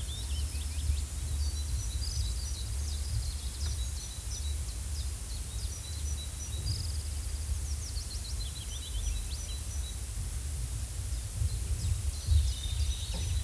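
Forest ambience: small birds chirping and trilling on and off over a steady low rumble.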